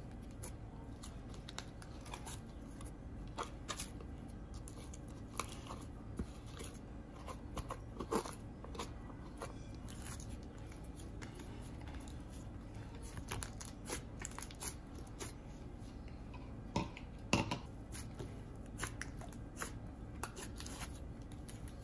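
Hands stretching, squeezing and pressing a clay-and-icing hybrid slime, giving irregular soft crackles and pops: the sizzle of icing slime.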